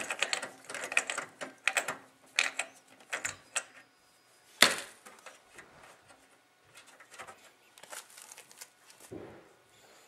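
Screwdriver backing a screw out of a graphics card's metal expansion-slot bracket in a PC case: a quick run of small metal clicks and scrapes, then one louder sharp click about five seconds in, followed by faint handling clicks.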